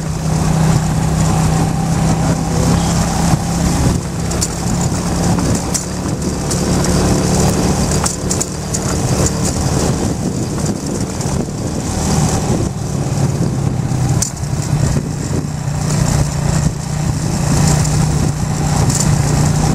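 Motorcycle engine running at a steady pitch while riding along a dirt track.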